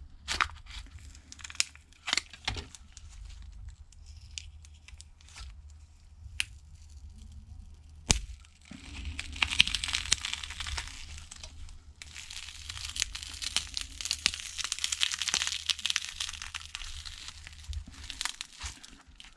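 Broken Samsung Galaxy S8 OLED screen being pried off its frame: scattered small clicks and cracks, a sharp snap about eight seconds in, then a long run of crackling and tearing as the adhesive and cracked glass give way.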